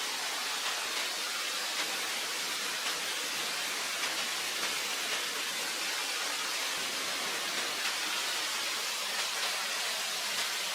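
Steady hiss of falling or rushing water, with faint scattered ticks.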